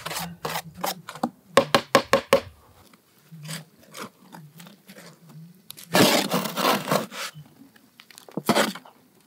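Hand trowel scraping and digging through soil and worm compost heaped in a wheelbarrow, mixing them together: a quick run of gritty scrapes at first, quieter strokes after, and the loudest burst of scraping about six seconds in.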